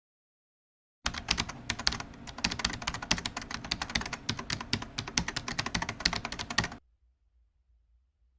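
A rapid, uneven run of small hard clicks and taps, starting about a second in and stopping abruptly about six seconds later.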